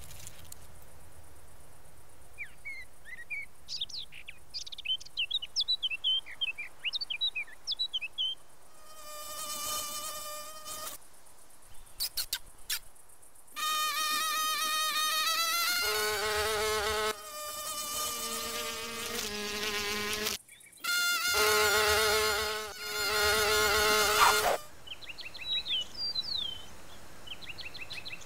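Cartoon ladybug sound effects. First a run of short, squeaky chirps. Then a pitched wing buzz rises in pitch as a ladybug takes off, hums steadily with a few brief breaks, and stops near the end, where a few more chirps follow.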